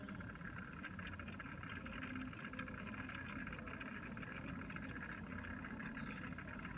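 Small electric motor of a rotating display turntable running steadily: an even mechanical hum with faint, rapid ticking.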